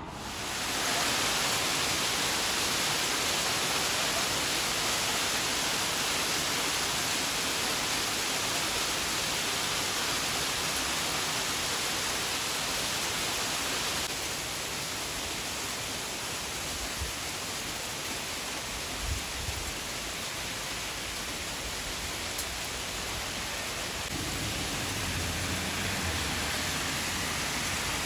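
Heavy downpour of rain and hail: a dense, steady hiss that sets in within the first second and drops slightly about halfway through.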